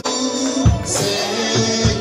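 Live gospel worship music: held keyboard chords with a few low drum thumps, and a voice singing a wavering line over them.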